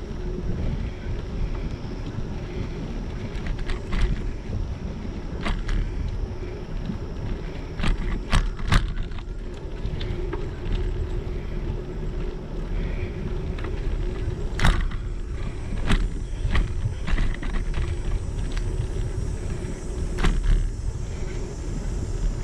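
Bicycle rolling along a paved path, recorded on a GoPro Hero7 Black: a steady rumble of tyres and wind on the microphone, broken by scattered sharp clicks and knocks as the bike and camera rattle over bumps.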